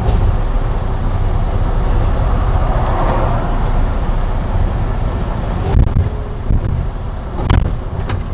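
Semi truck driving at highway speed, heard from inside the cab: a steady low engine and road rumble, with a few brief knocks in the last few seconds.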